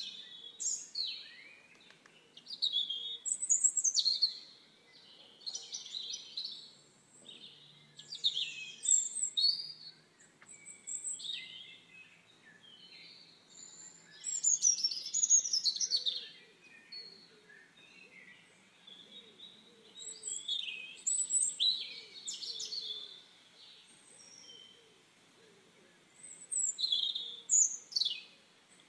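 Small birds singing, with bursts of varied high chirps and quick sweeping whistles every few seconds.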